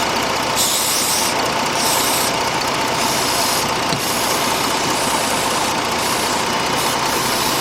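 2006 Jeep Grand Cherokee's 3.7-litre V6 idling steadily; the engine has a cylinder 3 misfire code (P0303) set. A few short bursts of hiss sound over the idle in the first few seconds.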